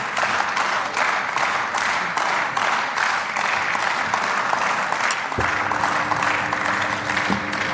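Sustained applause from members of parliament in the plenary chamber, a dense, even clatter of many hands clapping at the end of a speech. About five seconds in, a steady low tone starts under the clapping.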